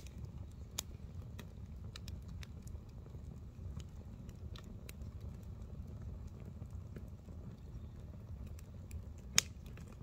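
Wood campfire crackling: scattered small sharp pops and clicks, with one much louder pop near the end, over a low steady rumble.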